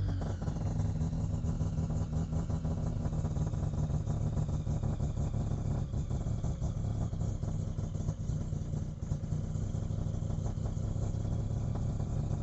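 Mazda RX3 808's engine idling steadily while it is tuned with a screwdriver in the engine bay.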